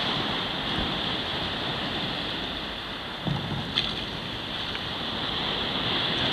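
Small waves breaking and washing against the foot of a slipway, with wind on the microphone. Two light knocks come a little past halfway.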